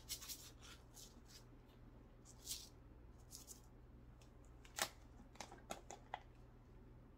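Faint handling of a screw-top jar: soft scrapes and rustles, then a few sharp clicks about five to six seconds in as the lid is twisted off.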